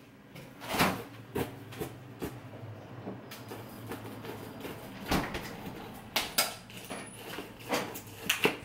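Kitchen clatter: a string of irregular knocks and clanks from cooking work, with a knife chopping on a cutting board and pots and utensils handled at the stove.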